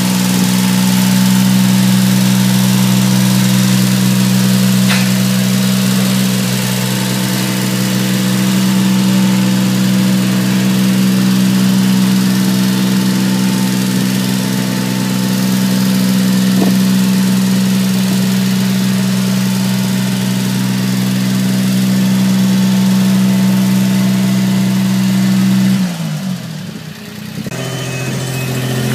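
A machine engine running steadily at one constant pitch while a yacht on its cradle is hauled along the slipway rails. About 26 seconds in its pitch sags and the sound drops away briefly, then it picks up again at a lower pitch.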